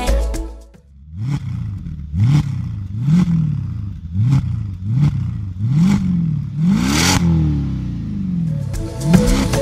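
Car engine revved in short throttle blips, about one a second, each pitch rising and falling back. It ends with one longer, higher rev that winds down slowly.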